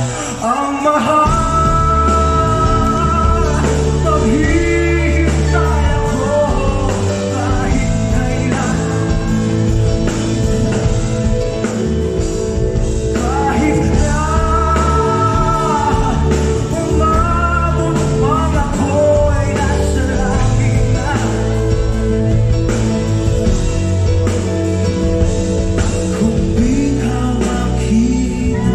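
Live band music with a strong, steady bass line and a lead vocalist singing a melody over it.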